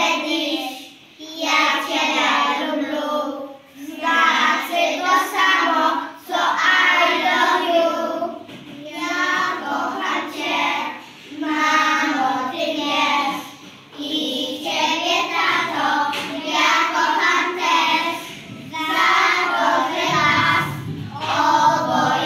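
A group of preschool children singing a song together in Polish, in phrases of about two seconds with short breaks between.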